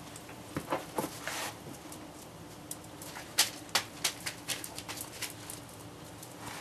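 Two small dogs play-wrestling on a hard floor: irregular clicks and scuffles of claws and paws, busiest in the middle.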